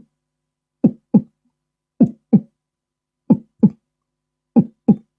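Beatboxed heartbeat: low mouth thumps in lub-dub pairs, four double beats at a steady pace of a little over a second.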